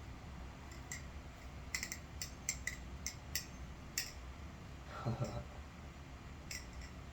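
Sharp metallic clicks of a titanium butterfly knife (NRB SLight balisong) being flipped, its handles clacking shut and open at irregular intervals, about ten clicks in all.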